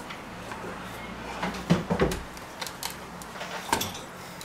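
Metal rotisserie spit and carving fork clicking and knocking as the spit and its prong clamp are worked out of a rolled pork roast on a wooden board; a quick cluster of knocks comes about one and a half to two seconds in, with single clicks later.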